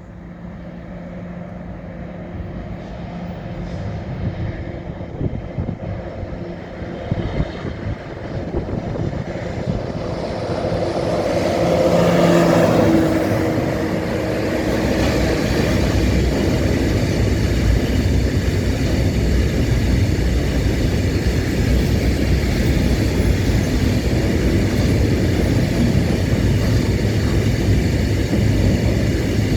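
A train approaching with a steady engine drone that grows louder, passing about twelve seconds in. After that, a loud, even rumble of rolling wheels on the track continues.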